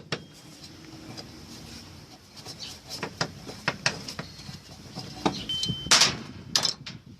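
Washing machine parts and hand tools being handled: scattered clicks and knocks, with a louder scraping clatter about six seconds in.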